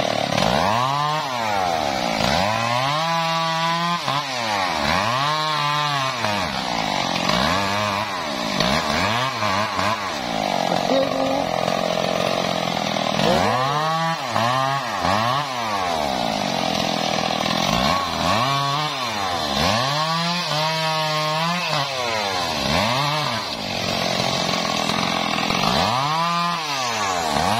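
Stihl MS 382 two-stroke chainsaw revving up and dropping back over and over as it cuts through the limbs of a felled tree, with a few steadier stretches held under load.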